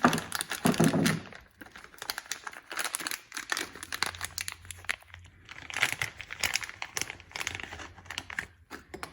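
Packaging crinkling and rustling in the hands as a brand new worm follower gear for a stand mixer is unwrapped, in irregular crackles and short rustles.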